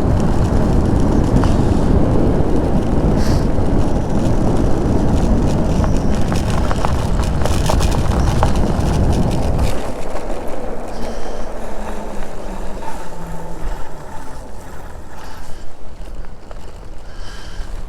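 Wind buffeting the microphone during a ride on an e-bike, a heavy, even rumble that drops away abruptly about ten seconds in, leaving quieter outdoor background sound.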